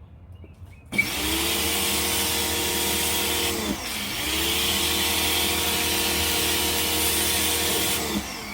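GreenWorks 1700 psi electric pressure washer triggered on: the motor spins up and the soap nozzle sprays with a loud hiss, drops out briefly for an instant near the middle, then runs again and winds down about 8 seconds in as the trigger is released.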